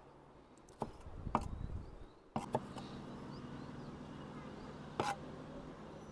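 A few light knocks of utensils at a chopping board, then a steady low hum sets in about two and a half seconds in.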